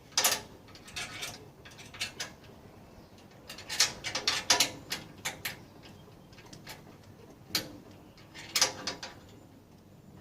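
Irregular metallic clicks and clinks of a box-end wrench working a 7/16 nut tight on a grill smoker's leg bolt, coming in short clusters.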